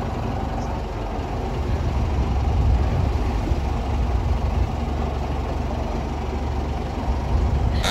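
Boat engine running steadily on board: a constant low rumble with an even hiss over it.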